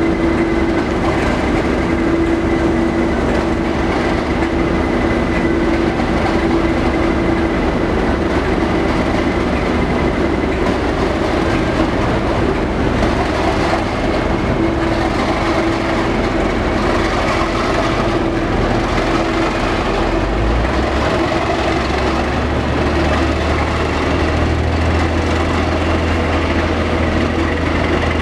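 Class 37 diesel locomotive's English Electric engine running with a steady drone and a thin high whine as the train pulls out slowly over the rails, with some clatter of wheels on the track. About two-thirds of the way through the low engine note shifts.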